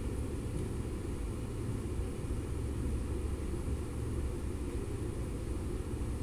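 Steady low rumble of background noise in a large sports hall, with no distinct ball hits or other events.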